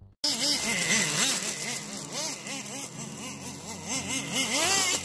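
Small nitro glow engine of a 1:10-scale RC car being revved up and down in quick throttle blips, about two a second, over a steady hiss, with a higher rev near the end.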